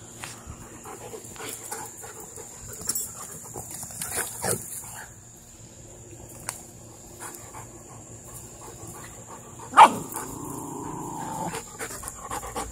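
Belgian Malinois dogs moving about, with light scuffling and small dog noises throughout. A single sharp, loud bark comes about ten seconds in and is the loudest sound.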